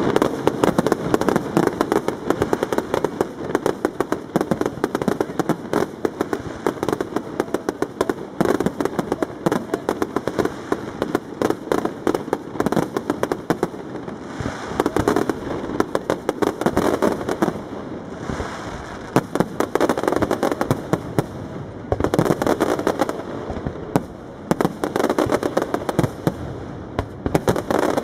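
Aerial fireworks display: a dense, unbroken barrage of shells launching and bursting, with sharp cracks and bangs following one another several times a second and a few brief lulls.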